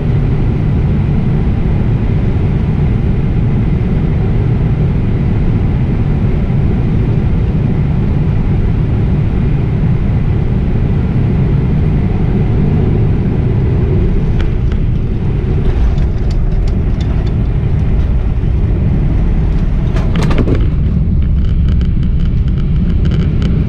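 Steady, loud low rumble of a Boeing 777-300ER passenger cabin in flight: engine and airflow noise. Faint clicks come in during the second half, with a short rush of noise about twenty seconds in.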